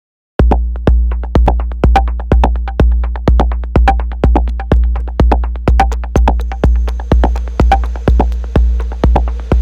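Electronic drum-machine beat processed through the Arturia Efx Fragments granular effect, starting abruptly about half a second in. A deep four-on-the-floor kick lands about twice a second under clicky percussion, and a faint high steady tone joins about two-thirds of the way through.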